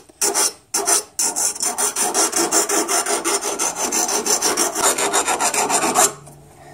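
Round file rasping against the freshly cut steel muzzle of a sawed-off 12 gauge double-barrel shotgun, beveling the sharp inside edge in quick, light back-and-forth strokes, several a second. The filing stops about six seconds in.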